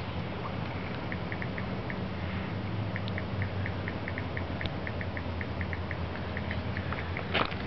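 Steady low electric hum of a Craftsman 351.217160 bench wood lathe's 1/2-horsepower single-phase induction motor running. A quick series of faint high ticks, about four or five a second, runs through most of it. There is a sharp click near the end.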